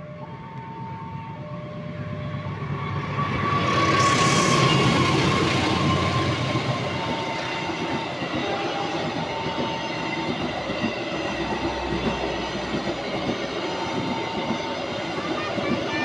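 A diesel locomotive hauling passenger coaches passes close by, loudest about four seconds in, then the coaches keep rolling past with wheels clattering over the rails. Over it a level-crossing warning alarm repeats two alternating tones.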